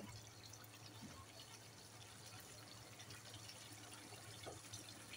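Thick masala gravy bubbling faintly in a frying pan over a high gas flame, with small pops and spatters. The oil has risen to the surface, the sign that the masala is fully cooked.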